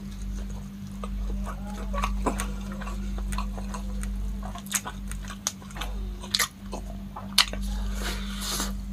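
Plastic-gloved hands handling food: dipping into sauce and working rice on a plate, heard as scattered sharp clicks and small wet squishes. The clicks are loudest about five, six and a half and seven and a half seconds in, over a steady low hum.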